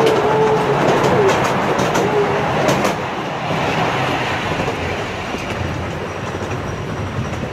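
Small amusement-park train rolling through a tunnel on narrow-gauge track, with a steady rumble and sharp clicks as the wheels pass over rail joints. A wavering squeal-like tone sounds over the first couple of seconds.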